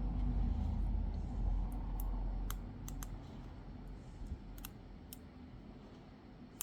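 Small sharp clicks and taps, about half a dozen spread through the second half, from tools and parts being handled while a smartphone is reassembled, over a low rumble that fades away.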